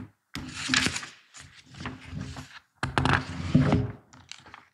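Paper rustling in several uneven bursts as the pages of a book are turned and handled.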